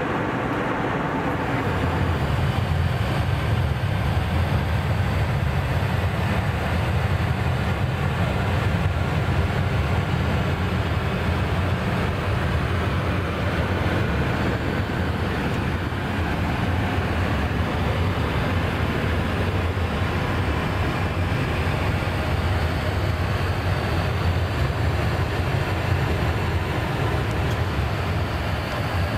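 Steady cabin noise of an Airbus A320 in flight: a constant low rumble under an even rush of airflow. The rumble grows louder about two seconds in and then holds steady.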